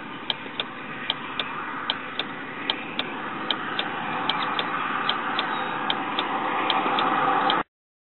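Steady mechanical tick-tock clicking in pairs, about one pair every 0.8 seconds, over a steady hiss that slowly grows louder, cutting off suddenly near the end.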